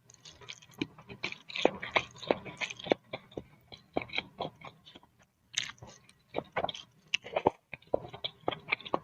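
Close-up eating sounds: chewing and slurping boiled instant noodles in soup with egg, many short wet smacks in an irregular stream, pausing briefly about five seconds in.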